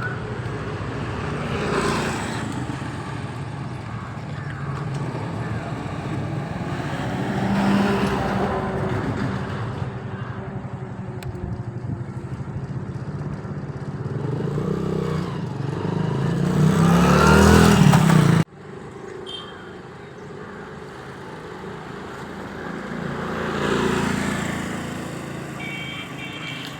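Road traffic: motor vehicles passing one after another, each swelling up and fading away, with a loud pass about two-thirds of the way through that cuts off suddenly.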